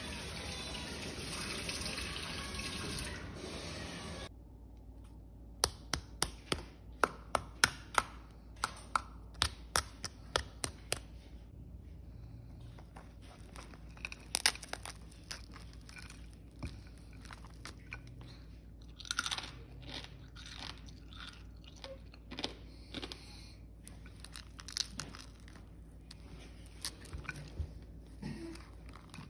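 Crisp, blistered skin of an oven-roasted pork hock (crispy pata) cracking and crunching as fingers press into and break it open. After a few seconds of steady hiss, a fast run of sharp cracks comes about two a second, then scattered softer crunches as the meat is torn apart.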